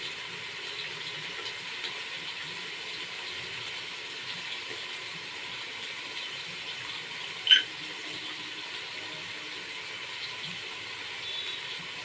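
Steady hiss of running water, with one short, sharp clink about seven and a half seconds in.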